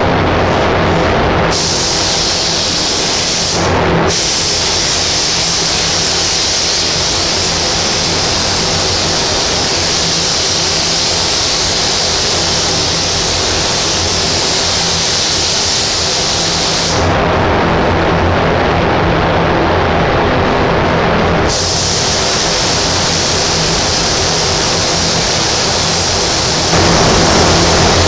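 3M Accuspray HVLP spray gun hissing as it sprays red basecoat onto a car's quarter panel. The hiss starts a second or so in, stops for about four seconds past the middle between passes, then resumes, over a steady low hum.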